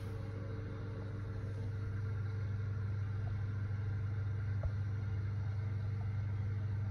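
Mitsubishi Nexway high-speed elevator car travelling in its shaft, heard from inside the car. A steady low hum and rumble grows a little louder about two seconds in, with one faint tick near the middle.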